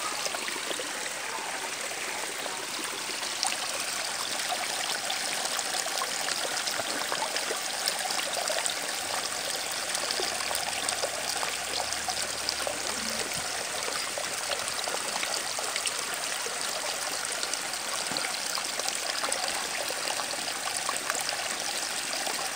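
Steady rushing and trickling of running water, like a stream, with many small splashy ticks and no pause.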